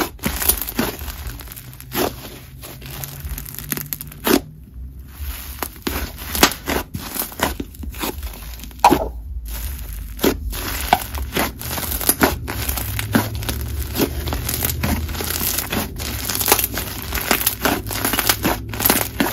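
Chewy, slightly crunchy clay fizz slime being squished, folded and pressed by hand, giving irregular crackling pops and sizzles.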